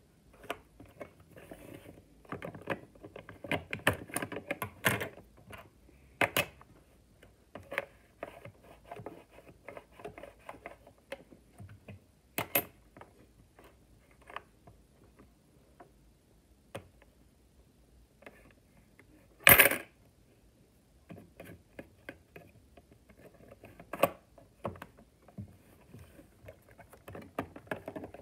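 Plastic Lego bricks clicking, knocking and rattling as the parts of a brick-built candy machine are handled, slid and pressed together. There are several louder sharp clacks, the loudest about two-thirds of the way through.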